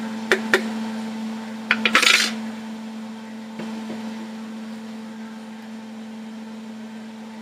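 Kitchen dishes and utensils clinking: a few sharp knocks in the first two seconds, then a brief rattle about two seconds in. A steady low hum runs underneath.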